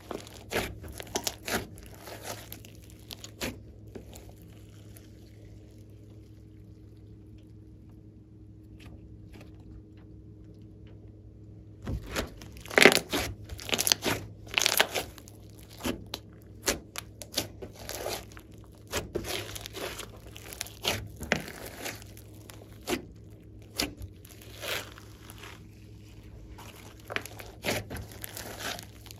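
Rainbow floam slime full of foam beads being squeezed and kneaded by hand: sticky crackling and squelching with sharp pops of trapped air. A few crackles at first, a quieter stretch of several seconds, then about 12 seconds in a dense run of pops and crackles that lasts to the end.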